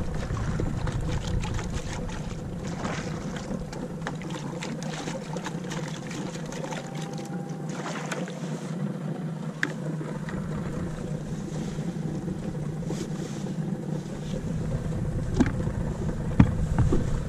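Seawater splashing and pouring as a white plastic bucket is dipped over the side of a small aluminium boat and rinsed, with scattered light knocks and a steady low hum underneath.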